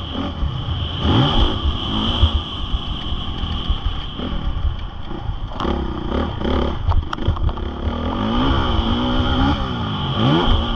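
Honda CRF450R's single-cylinder four-stroke engine revving up and down over and over as the motocross bike is ridden, with heavy wind rumble on the microphone. A quick run of sharp clattering knocks comes about six to seven seconds in.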